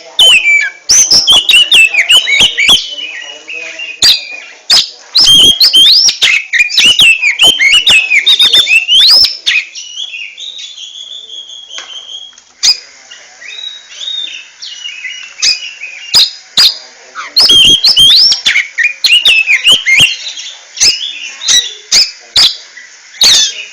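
Oriental magpie-robin (kacer) singing loudly: rapid, varied whistled phrases that swoop up and down, mixed with many sharp clicking notes. The song thins out briefly about halfway through, then starts again.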